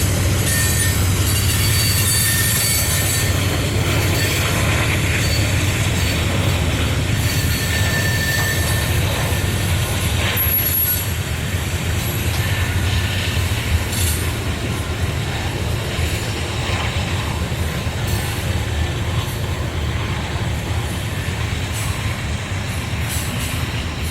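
Freight cars of a coal train rolling past: a steady rumble and rail noise with brief high-pitched wheel squeals now and then, easing slightly in loudness over the second half.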